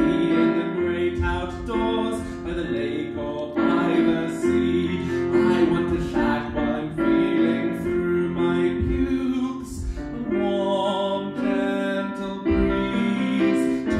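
A song sung in long held notes over a keyboard accompaniment.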